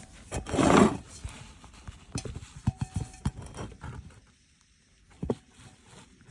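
Irregular small clicks and knocks of hand tools working on a plastic car light control unit being unscrewed, with a short scrape about a second in and one last knock near the end.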